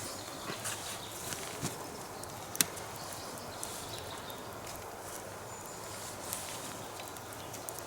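Forest campsite ambience: an even background hiss with scattered small clicks and knocks, and one sharper click about two and a half seconds in.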